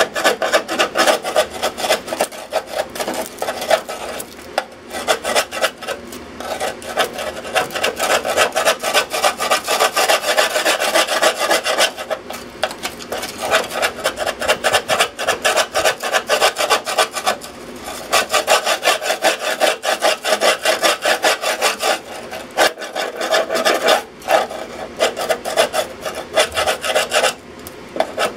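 Rust being scrubbed by hand off the corroded top of a sheet-metal electrical box with a hand-held abrasive, in rapid back-and-forth strokes. The scrubbing comes in several long runs broken by short pauses.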